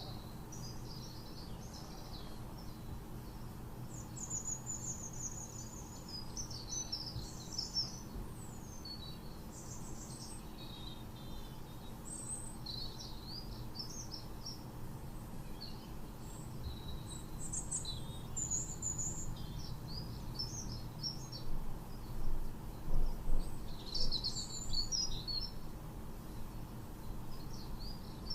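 Small birds chirping and twittering, with many short calls and trills overlapping over a faint steady low hum; the calls are loudest about three-quarters of the way through.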